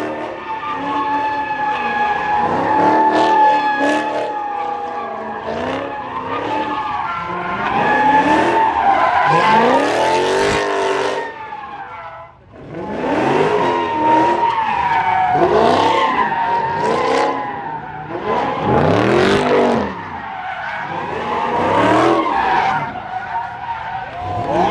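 Car tyres squealing continuously as a car spins donuts, with the engine revving up and down every couple of seconds. The sound drops away briefly about twelve seconds in, then picks up again.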